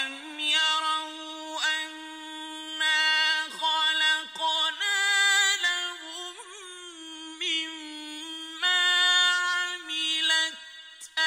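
A man's solo voice reciting the Quran in the slow, melodic mujawwad style, holding long, ornamented notes that bend and glide in pitch, with short breaks between phrases.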